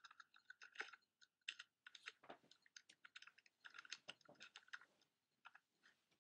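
Computer keyboard typing: faint, quick, irregular key clicks in several short runs with brief pauses between them, as a username and password are entered.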